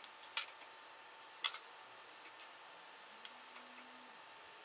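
A few faint, scattered clicks and taps from handling a small plastic hobby servo and laser-cut wooden parts while fitting them together.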